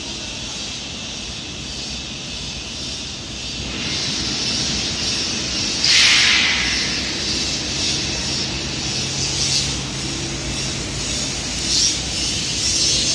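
Glass tempering furnace machinery running: a steady hiss that grows louder about four seconds in, a sudden loud burst of hiss about six seconds in, and a low steady hum setting in after about eight seconds.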